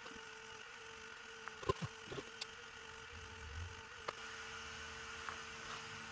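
Steady faint hum of a quiet room with a few light clicks and taps, one about two seconds in and another about four seconds in.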